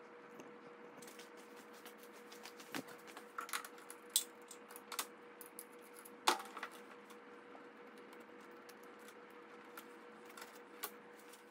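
Scattered small clicks and clinks of hands working at a lawn tractor's starter, unhooking its wiring connectors and terminals, with a faint steady hum underneath.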